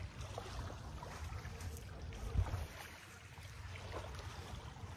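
Wind rumbling on the microphone with light lake water lapping at the shore, and a single thump about halfway through.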